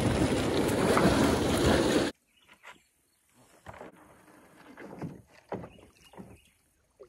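A loud, rough rushing noise for about two seconds that cuts off abruptly, then faint, irregular splashes of a kayak paddle dipping into shallow river water as the kayak moves off.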